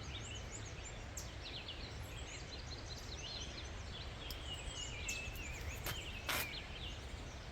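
Several birds singing, with many short chirps and trills, over a steady low rumble. A few sharp clicks, the loudest a little over six seconds in.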